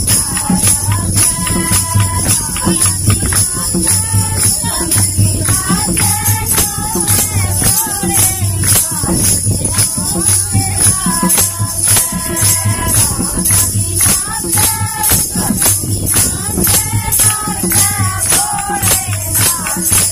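Women singing a Krishna bhajan, a devotional folk song, to a quick steady beat of jingling hand percussion with a low drum-like pulse.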